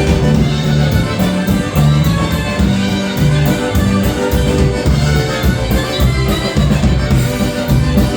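Live polka band playing a polka: a bass line stepping from note to note under a steady beat, with melody instruments above.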